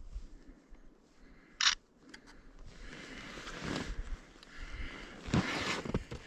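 Hunting skis sliding over snow in two long swishes about two seconds apart, after a short sharp click a second and a half in.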